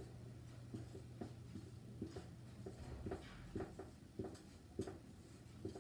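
Dry-erase marker writing on a whiteboard: a faint, uneven run of short strokes, over a faint steady low hum.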